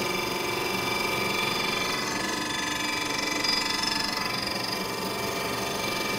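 Knee mill running, its 3/4-inch end mill slowly plunging into a cast aluminum motorcycle engine case: a steady machine whine made of several fixed tones at an even level.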